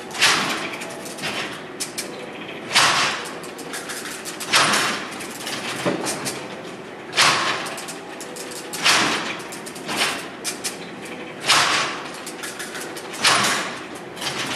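Hand-cranked Babbage Difference Engine No. 2 running: its metal gears, figure-wheel columns and carry levers clatter. A loud surge of mechanical clatter comes about every two seconds, seven times, with lighter clicking and ticking in between.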